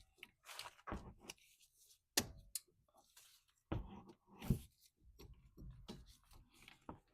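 Sporadic light clicks, clinks and a few dull knocks of hand tools being handled: a socket and ratchet being fitted and positioned on the brake's bolts.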